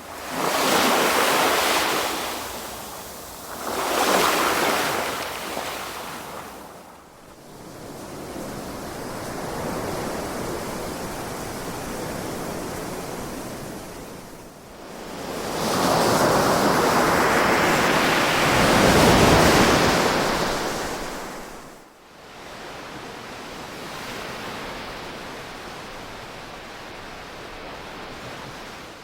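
Ocean surf, waves swelling and falling back in washes of noise. Two surges come in the first five seconds, then a gentler wash, then the biggest surge about fifteen to twenty seconds in, followed by a steadier, softer hiss.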